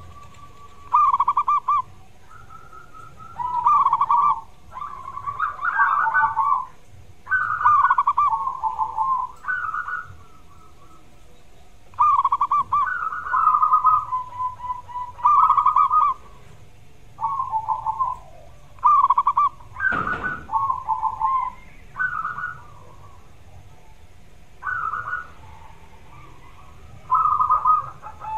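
Zebra dove (perkutut) cooing in repeated short phrases, each a quick run of rapid notes, with brief pauses between. There is a sharp click about two-thirds of the way through.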